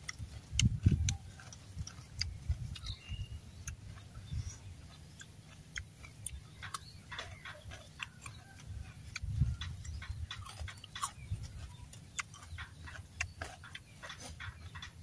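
Eating sounds: scattered small clicks and taps as food is picked from a bowl by hand and eaten, with irregular low thumps.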